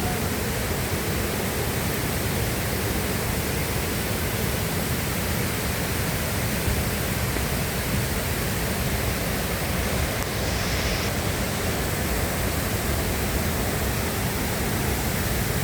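Steady rush of the Agua Azul waterfalls, cascades of water pouring without a break.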